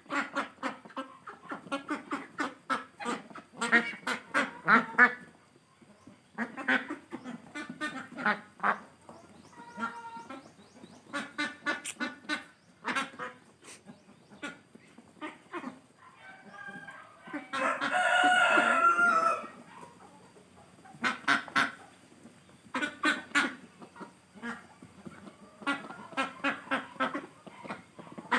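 Chicken clucking in runs of quick, repeated short calls, with one longer, louder call about eighteen seconds in.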